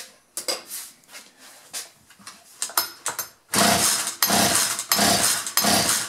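Small clicks of handling, then, about three and a half seconds in, a Poulan Pro 40cc two-stroke chainsaw engine is pull-started with its kill-switch wire disconnected, the recoil cord cranking it in loud pulsing surges, about two or three a second.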